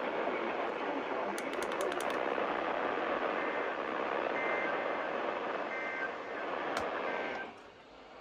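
Heavy radio static hissing from a NOAA weather radio receiver, with short beep-like tones faintly heard through the noise. The hiss drops away suddenly near the end. The interference comes from something in the house.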